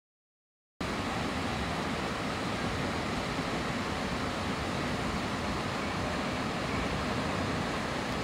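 Steady rushing noise with no distinct events, cutting in abruptly after about a second of total silence.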